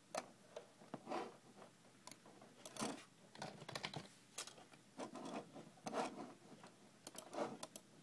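Faint handling noise from a hand-held phone: irregular clicks and short scratchy rustles, a few each second, the strongest near the end.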